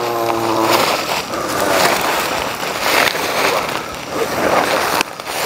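A man's voice holding one drawn-out sound, then a loud rough hissing noise with irregular sharp crackles that breaks off briefly near the end.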